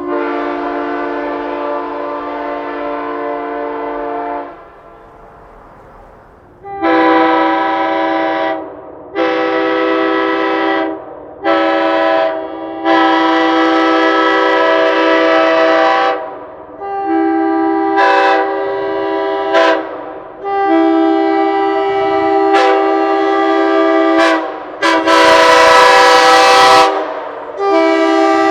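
Nathan AirChime K5L five-chime train horn on a truck, sounding a steady multi-note chord. One long blast of about four and a half seconds, then after a short pause a string of shorter and longer blasts.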